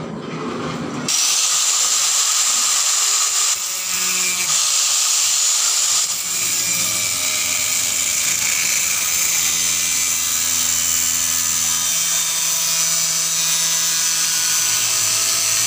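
Bosch angle grinder cutting through a 1.4 mm galvanized iron sheet, a loud, steady grinding hiss that starts abruptly about a second in.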